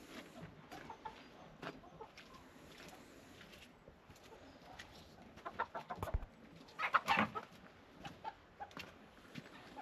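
Chickens clucking in short, scattered calls, with a louder flurry of squawks about seven seconds in and a dull knock just before it.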